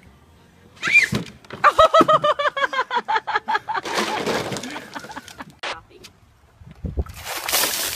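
Short, rhythmic laughing, then ice water poured from a bucket, rushing down a plastic slide and splashing onto a person with ice clattering. Near the end, a second, louder splash of water.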